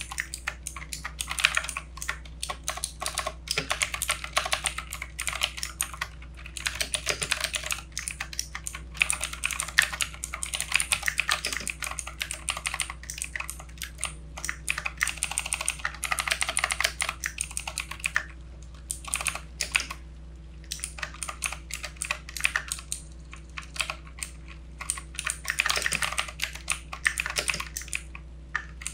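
Typing on a backlit mechanical computer keyboard: fast runs of key clacks, thinning to scattered single key presses for a few seconds past the middle, then picking up again.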